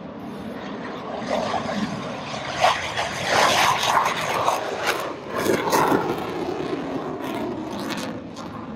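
F-16 fighter jet taking off and climbing away: a loud jet engine rush that builds over the first couple of seconds, with a crackling edge, then holds.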